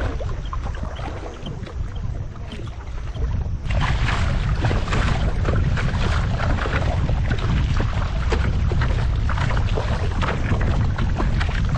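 Wind buffeting the microphone, with water hissing and slapping against a windsurf board as it runs over the chop. The water noise jumps louder about three and a half seconds in and stays dense and crackly.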